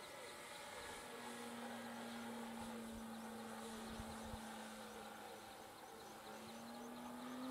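Electric motor and propeller of a Dynam Waco radio-controlled biplane flying at a distance, a steady hum that rises a little in pitch near the end.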